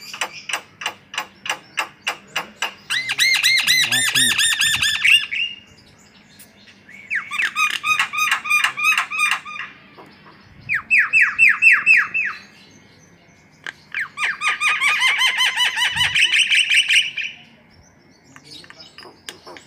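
Javan myna (jalak kebo) singing: four bouts of rapidly repeated notes, each lasting a few seconds, with short pauses between them.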